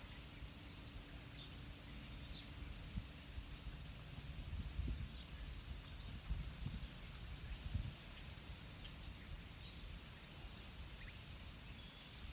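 Quiet woodland ambience: a steady low rumble that swells a little a few times, with faint, scattered high chirps of distant birds.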